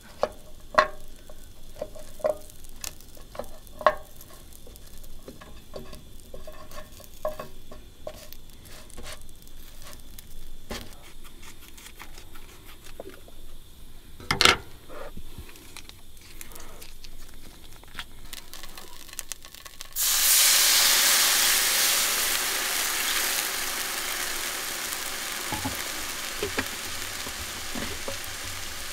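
Chopsticks clicking and tapping in a frying pan as cubes of food are set out, with one louder knock about halfway. About two-thirds in, a loud sizzle starts suddenly as liquid goes into the hot pan, then slowly eases off.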